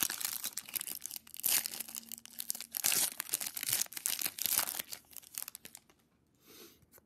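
Foil wrapper of a trading-card pack being torn open and crinkled by hand, a dense crackling that goes on for about five and a half seconds, then stops, with one short rustle near the end.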